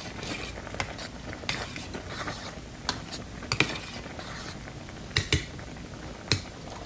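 A metal spoon stirs soft rice and lentils in a steaming stainless steel pot, clinking against the pot several times at irregular moments. A pair of clinks falls near the middle and another pair about five seconds in.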